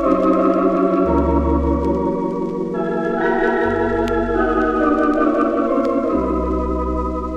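Organ music: sustained chords with a wavering vibrato, changing several times, and starting to fade near the end. A few faint vinyl surface clicks can be heard.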